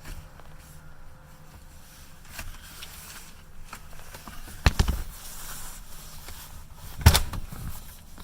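Two sharp clunks about two and a half seconds apart, the second the louder, with lighter clicks and rattles around them: the removable middle seat section in a 2013 Toyota Highlander's second row being folded flat and unlatched.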